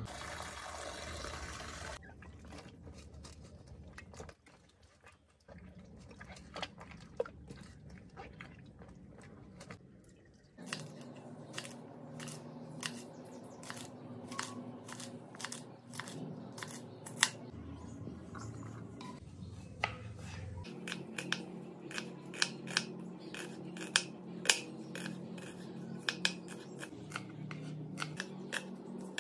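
Kitchen knife slicing okra and then red onion on a wooden cutting board: a steady run of sharp taps as the blade meets the board, one or two a second.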